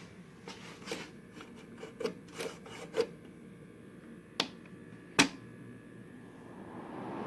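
Scattered light clicks and knocks of handling, the sharpest a single knock about five seconds in. Near the end a steady airy noise begins to swell: the restored 1967 Carrier Weathermaker air conditioner starting up.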